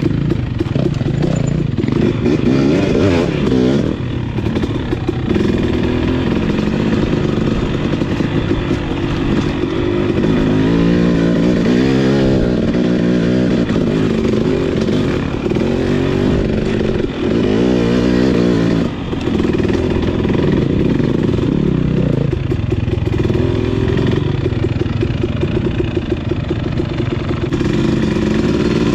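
Husqvarna TC250 two-stroke dirt bike engine running under way on a rough trail, its revs rising and falling with the throttle and dropping off briefly twice past the middle.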